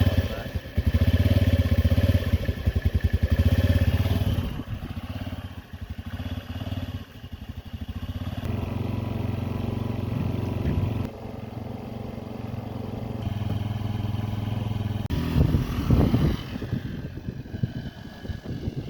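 2005 Honda Metropolitan's 49cc four-stroke single-cylinder engine running just after a cold start. It is loud with the throttle held open for the first four seconds, then settles to a lower, steadier idle, with a brief rev near the end.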